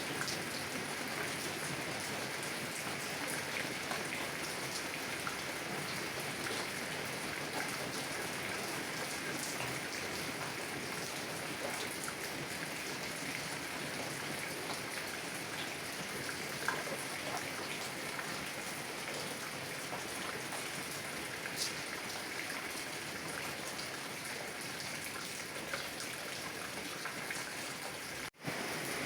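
Heavy rain on a car's window and roof, heard from inside the car: a steady dense patter with scattered single drops tapping louder. It cuts out for an instant about a second before the end.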